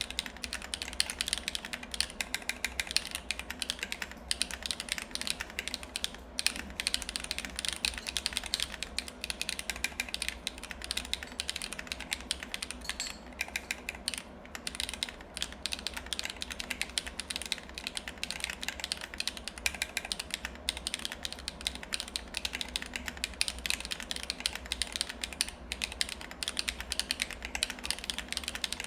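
Continuous fast typing on a MechVault Vault35 mechanical keyboard with factory-lubed HMX Cheese switches, an ABS plate and DSS-profile keycaps: a dense stream of keystroke clicks. A steady low hum runs underneath.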